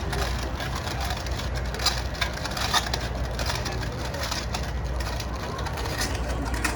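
Large concrete 3D construction printer running with a steady low hum, with scattered short clicks and knocks over a constant noisy background.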